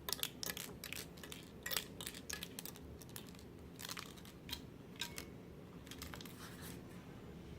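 A HoldPeak HP-770G digital multimeter being shaken and handled, with something loose rattling inside its plastic case as scattered, irregular clicks that thin out after about five seconds. The rattle is a sign of a loose part inside the meter, which the owner places in the top of the case.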